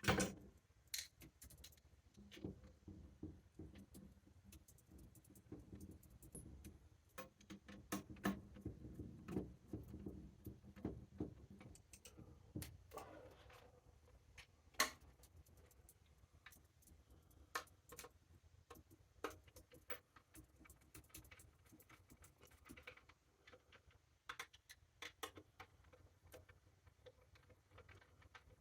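Scattered small clicks, taps and rattles of plastic and metal parts being handled and fitted onto a cordless circular saw, with a sharper knock at the start and another about halfway through.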